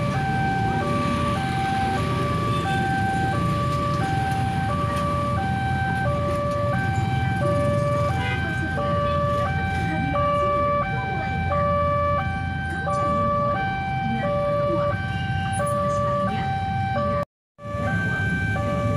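Railway level-crossing warning alarm sounding its electronic two-tone signal, switching between a higher and a lower tone about every 0.7 s, which warns that a train is coming and the barrier is down. Waiting road traffic rumbles underneath, and the sound cuts out for a moment near the end.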